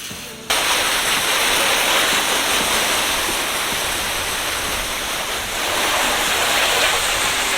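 Loud, steady rushing hiss that starts abruptly about half a second in.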